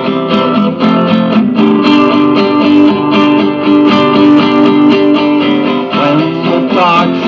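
Instrumental break in a song: a strummed acoustic guitar playing chords in a steady rhythm, with other instruments sustaining underneath.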